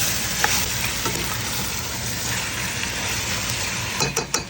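Chicken pieces sizzling as they fry in a hot pan with garlic, ginger and onion. There is a sharp click about half a second in and a few more near the end.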